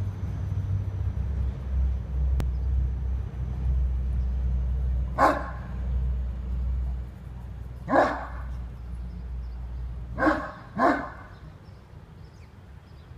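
Spanish Mastiff barking: four single barks a few seconds apart, the last two close together. A low rumble sits under the first barks and drops away just after the third.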